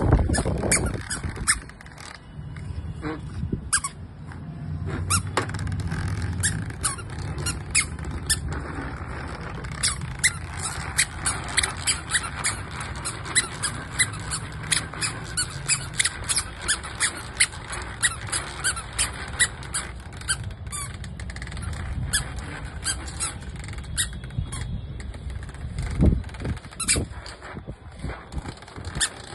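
Plastic baby push-walker rolling over concrete with a low rumble from its wheels, and sharp squeaks repeating a couple of times a second as the toddler steps along behind it.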